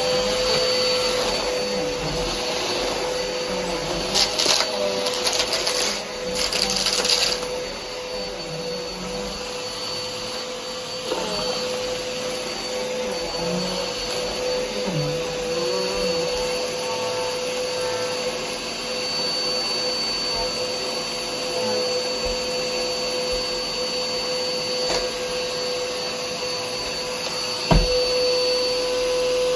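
11-year-old Hoover Whirlwind vacuum cleaner running steadily, its motor giving a constant whine over the rush of air. About four to seven seconds in there is a run of sharp clatters, and a single knock sounds near the end.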